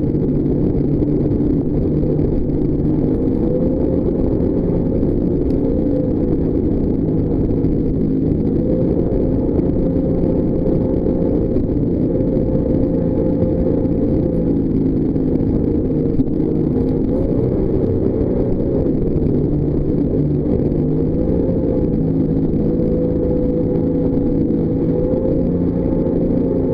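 Jetboat engine running steadily at speed, its pitch rising and falling slightly a few times.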